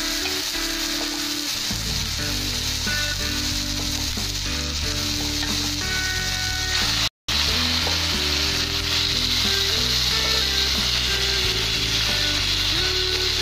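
Marinated chicken frying in a hot cast-iron skillet: a steady sizzling hiss, with background music playing underneath. About seven seconds in, the sound cuts out for a split second, then the sizzling carries on.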